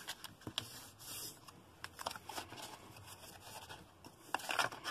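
Plastic scoring tool rubbing along folds in cardstock, with light paper rustles and small clicks as the card is handled. The sound comes in short scrapes, a few louder ones near the end.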